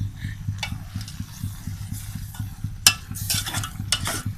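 A spoon stirring fried brinjal into a pot of simmering coconut-milk curry, with repeated scrapes and clinks against the pot and a sharp clink about three seconds in, over a steady low hum.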